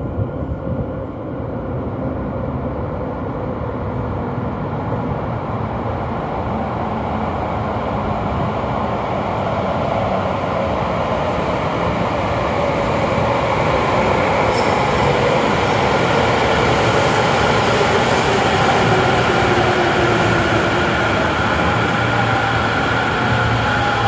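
A train approaching along the platform, its rumble building steadily louder over about twenty seconds, with whining tones that slide down in pitch in the second half.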